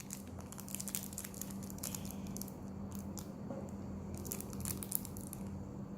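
Surprise-egg wrapper crinkling and tearing as it is opened by hand, a rapid run of small irregular crackles, over a steady low hum.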